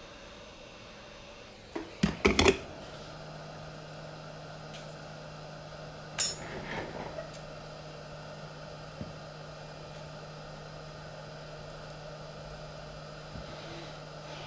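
Tools and parts knocked and set down on a workbench: a quick cluster of knocks about two seconds in and one sharp clink about four seconds later, with a few lighter clicks after. A steady low hum starts just after the first knocks and carries on.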